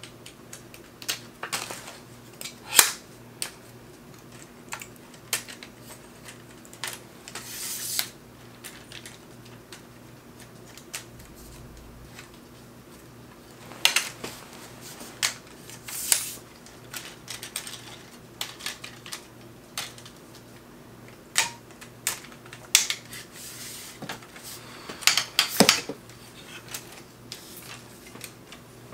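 Travel camera tripod being unfolded and set up: irregular sharp clicks and snaps from its leg locks and joints, with a few brief rustles of plastic packaging.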